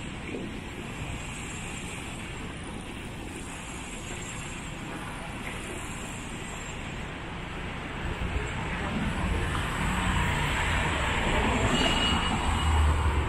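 Street traffic noise of passing cars, growing louder in the second half, with a heavy low rumble near the end as a vehicle goes by.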